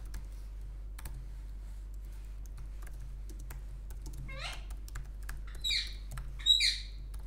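Computer keyboard typing in quick clicks, joined in the last three seconds by three short calls from a pet bird. The first call sweeps upward, and the last is the loudest.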